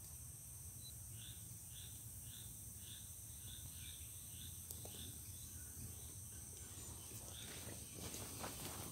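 Faint outdoor ambience: insects droning steadily at a high pitch, and a bird repeating a short chirp about twice a second. A few clicks and knocks come near the end.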